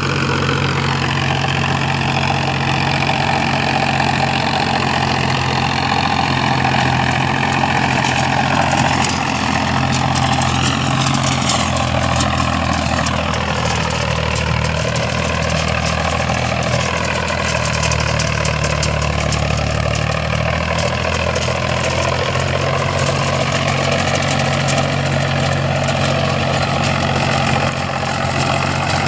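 Indo Farm tractor's diesel engine running steadily while driving an 8-foot double-rotor rotavator. The engine note changes for about ten seconds in the middle, then settles back.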